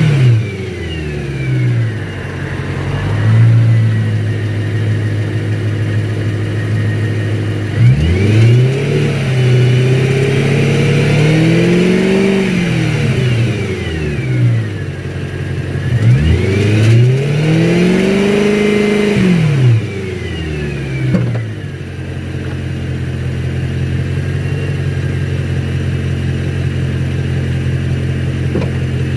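BMW E92 M3's 4.0-litre V8 coming down from revs, idling, then revved up and let fall back twice, each rise held a few seconds, before settling to a steady idle.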